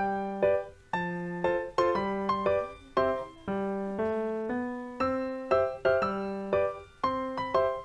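Background piano music: a light tune of single notes and small chords, each struck and fading, about two or three notes a second.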